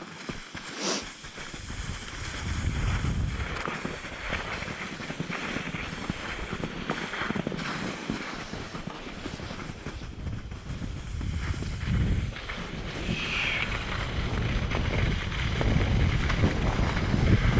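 Wind buffeting the microphone: a low rumbling noise in uneven gusts that grows louder toward the end, with a short sharp sound about a second in.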